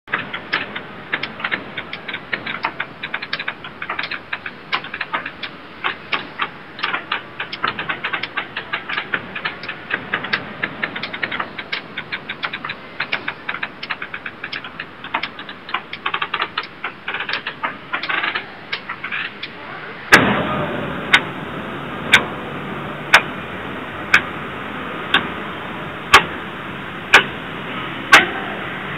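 Many clocks ticking out of step, a dense, uneven clatter of overlapping ticks. About 20 seconds in it switches to single loud ticks once a second, the clocks now ticking in unison.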